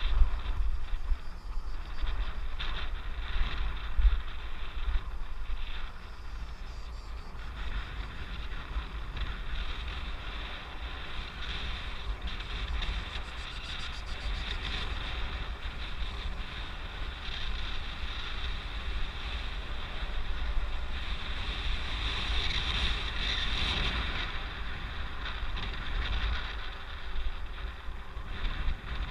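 Wind buffeting the microphone during a fast downhill ride: a gusty low rumble with a steady hiss over it.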